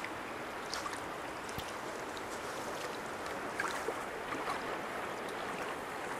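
Steady rush of a clear river flowing over a shallow gravel bed, with scattered small splashing ticks.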